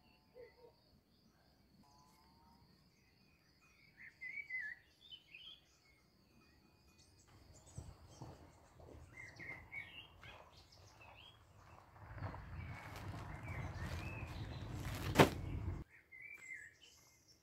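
Small birds chirping on and off, with a thin steady high tone in the first few seconds. In the second half a broad rushing noise builds up, with one sharp click near its end, then cuts off suddenly.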